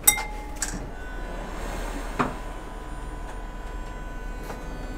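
A tram's acoustic gong bell struck once at the start, a sharp ding that dies away within a fraction of a second. After it the tram runs with a steady electric whine and low hum, and a couple of faint knocks.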